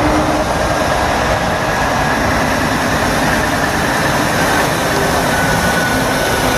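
Scania truck's diesel engine running steadily as the tractor unit pulls a curtainsider semi-trailer at low speed, with a faint steady high tone over the engine noise.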